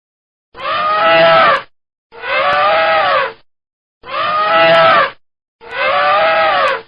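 Elephant trumpeting in a repeating loop: four calls about a second long, each rising then falling in pitch, with silence between them.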